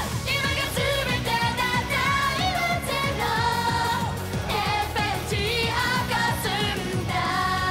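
Upbeat Japanese idol pop-rock song: voices singing over a band with a steady drum beat.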